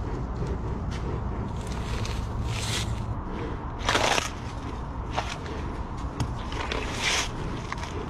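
Rhinoceros nosing and biting into a whole watermelon: a few short, loud crunching or huffing sounds about two and a half, four and seven seconds in, the one at four seconds the loudest, over a steady low rumble.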